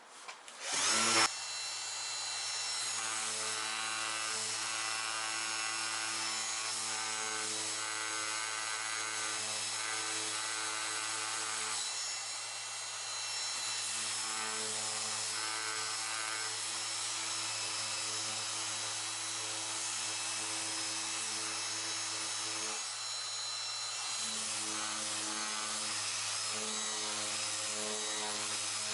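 Orbital sander starting up about a second in, then running steadily with a motor hum and the rasp of the pad on a plastic car bumper as it sands paint and primer off around a crack. The level dips briefly twice.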